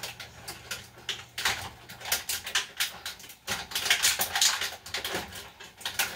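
Jars, bottles and plastic containers clinking and knocking as they are shifted around in a refrigerator's door shelves, a quick, irregular run of knocks throughout.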